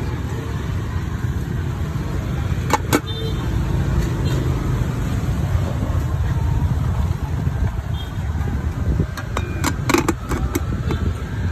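Steady low rumble of street traffic, with a few sharp clinks about three seconds in and a quick cluster of them around ten seconds in.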